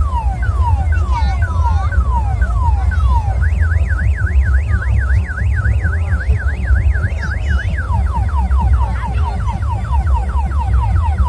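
Electronic car-alarm-style siren sound effect cycling through its tones: repeated falling whistles about two a second, then a fast up-and-down warble about four times a second for several seconds, then quicker falling whistles, over a steady low rumble.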